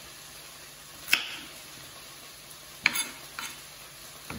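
Chef's knife chopping a carrot on a wooden chopping board: four sharp, unevenly spaced knocks as the blade strikes through to the board.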